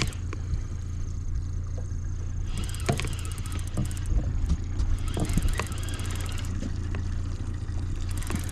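Boat motor running with a steady low drone at trolling speed, while a fishing reel clicks rapidly in two stretches of a second or two each as a hooked fish is played.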